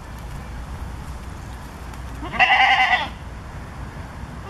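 A goat bleats once, a single call of under a second about halfway through.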